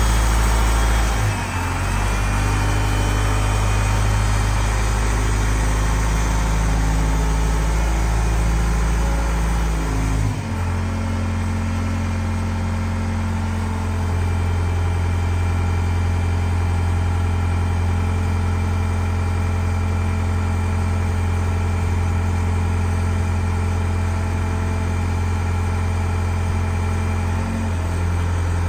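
Diesel engine running steadily while the pressure digger's hydraulics are worked. Its note changes abruptly about a second in and again about ten seconds in, with a smaller shift near the end.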